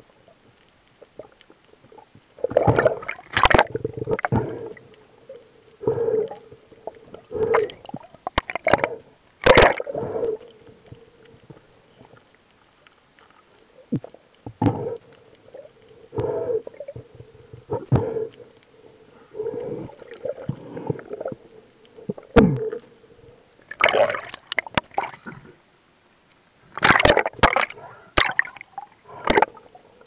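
Water sloshing and gurgling around an underwater camera, in irregular bursts, over a faint steady hum.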